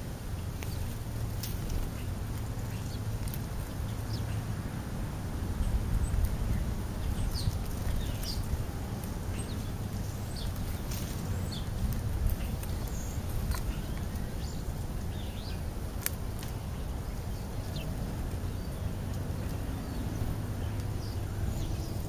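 House sparrows and European starlings giving short, scattered high chirps over a steady low background rumble.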